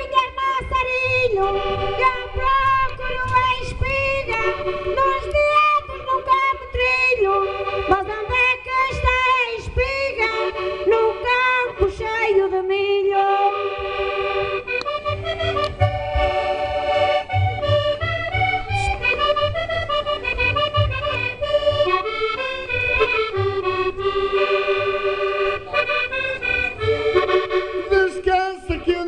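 Accordion playing a lively instrumental interlude of traditional Portuguese desafio song, with quick melodic runs over a steady low beat.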